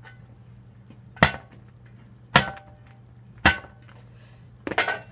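Sharp chopping blows of a tool striking a hard, woody queen palm seed pod, about one a second, the last a quick double. Some blows leave a short ring.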